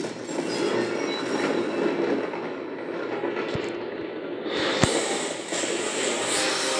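Movie sound effects played through a TV: a continuous rumbling roar of torrents of water pouring into a collapsing chasm, with falling rock and one sharp crack about five seconds in.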